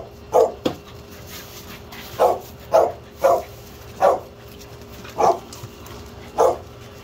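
Pit bull puppy barking: a string of short barks, half a second to a second apart, from about two seconds in.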